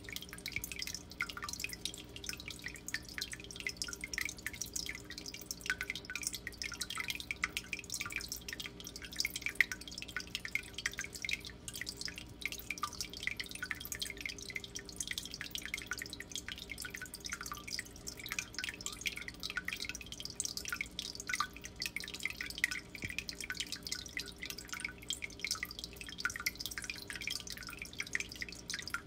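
Water trickling and dripping in a turtle tank: a fast, irregular patter of small drops that never lets up, over a steady low hum.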